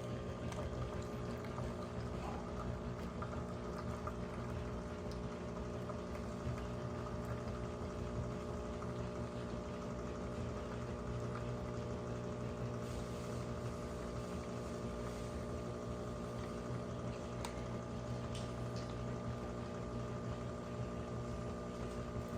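Miele bean-to-cup coffee machine dispensing coffee into a mug: a steady machine hum with the coffee streams pouring in.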